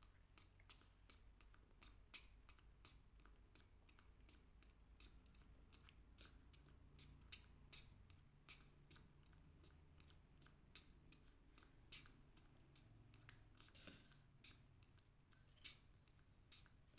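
Near silence with faint, irregular small clicks, a few a second, from straws being sipped and worked in husked young coconuts.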